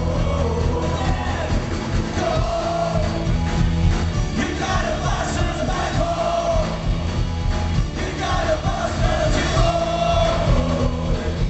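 Live Celtic punk band playing loud, with drums, accordion and singing, heard from within the crowd, which yells along.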